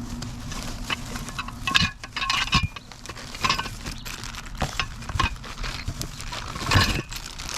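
Small metal shelf-rack hardware being handled: irregular clinks, taps and rustling, with a louder knock near the end.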